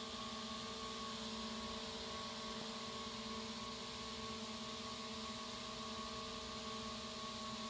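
A steady electrical hum made of several fixed tones over a faint hiss, unchanging throughout.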